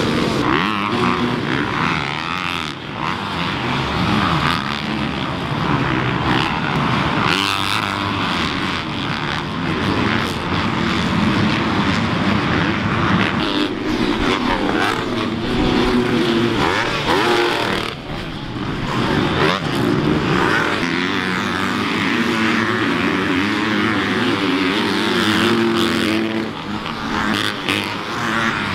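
Several dirt bikes racing on a supercross track, their engines revving up and down over one another as they pass.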